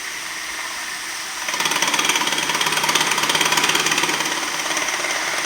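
Power grinder running on a marble floor, grinding down lippage between tiles. It gets louder about one and a half seconds in, as it bears into the stone.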